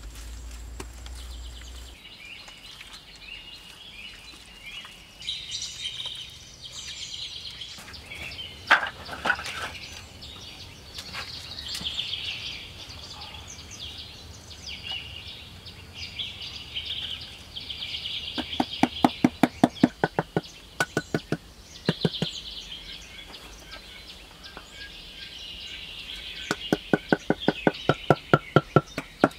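Rapid wooden knocking in two runs in the second half, about six or seven strikes a second, with a few single knocks before: a hand-held wooden block tapping wooden floor planks down onto a clay floor. Birds chirp steadily behind it.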